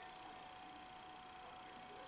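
Near silence: faint room tone with a thin, steady electronic whine held at one pitch.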